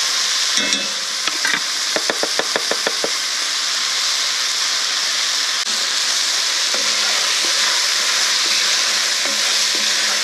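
Sausage, onion and peppers sizzling steadily in a Staub enamelled cast-iron pot as flour is spooned over them for thickening. About two seconds in comes a quick run of about eight light taps, and near the end the mixture is stirred.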